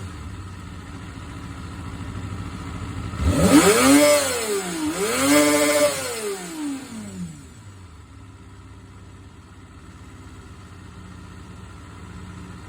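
Honda CBR250RR (MC22) inline-four engine idling, blipped twice on the throttle a little after three seconds in; each rev rises and falls, then it settles back to a steady idle. The owner is unsure whether it has an abnormal engine noise.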